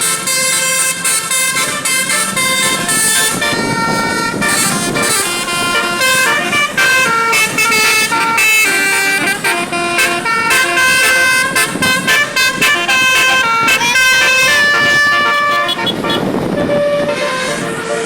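Bus basuri telolet horn playing a tune: several horn notes at once switching rapidly from pitch to pitch in a fast melody, with a few longer held notes near the end.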